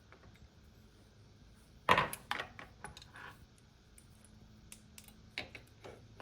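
Small metal parts and hand tools clicking and clinking while a motorcycle is being taken apart, with a cluster of sharp clinks about two seconds in and scattered lighter clicks after.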